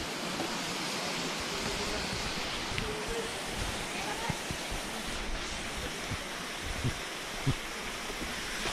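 Steady rushing of a mountain stream running through a gorge, with faint voices in the distance and a few soft low bumps.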